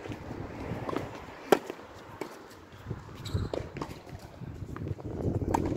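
A tennis point being played on a hard court: a loud, sharp crack of a racket striking the ball about 1.5 seconds in, followed by fainter pops of further shots and ball bounces and the scuff of footsteps.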